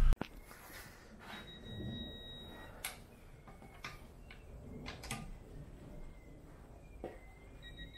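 Torque wrench tightening a car wheel's lug nuts: a handful of sharp, separate clicks.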